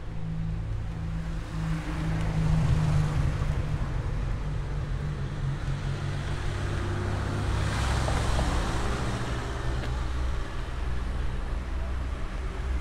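A car passing along the street: its noise swells to a peak about eight seconds in and then fades, over a steady low rumble.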